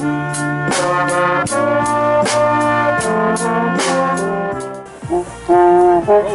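Brass band music: trombones and trumpets play sustained chords over a steady drumbeat. About five seconds in the drums stop and the brass plays loud held notes separated by short breaks.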